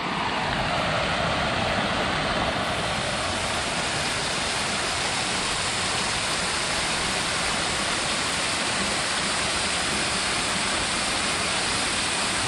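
Water pouring steadily down several fountain columns into a shallow pool: a continuous, even rushing splash.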